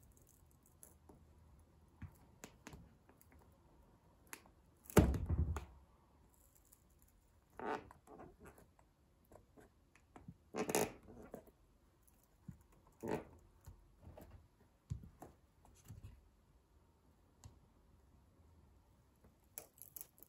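Wooden pencil creaking and cracking under the stiletto heel of a leather boot, in a few scattered crunches, with one heavier knock about five seconds in.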